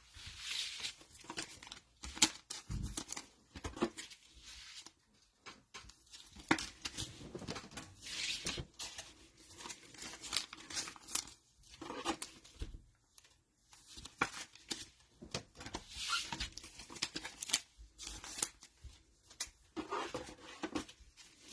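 Cellophane wrappers of trading-card cello packs being torn open and crinkled, with the cards handled between rips; soft, irregular rustles and rips.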